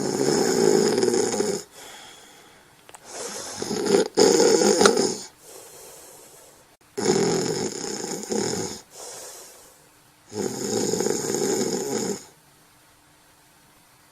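Snoring: four loud snores, each about two seconds long, coming roughly every three and a half seconds, with quieter breathing in the gaps between.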